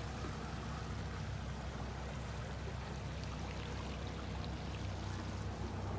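Boat's outboard motor running at low speed, a steady low hum, with water sloshing along the hull.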